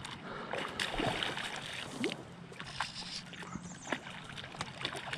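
Hooked smallmouth bass thrashing at the water's surface on a fly line, a run of irregular splashes and sloshes a second or so apart.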